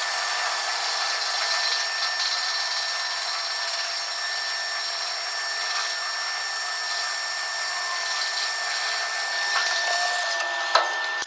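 Metal lathe turning a spacer workpiece: a steady whine with several held high tones over an even cutting hiss. A single sharp click near the end, then the sound drops off.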